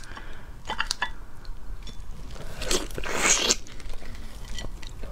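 Crackling and crunching of large red shrimp shells being pulled apart by hand, a few sharp cracks about a second in and a longer crackling tear a little past the middle.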